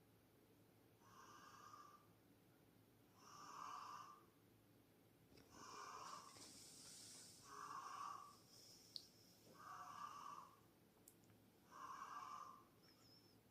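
A neighbour's snoring, faint and heard through the building, a rasping snore on each breath about every two seconds. A single sharp click comes about nine seconds in.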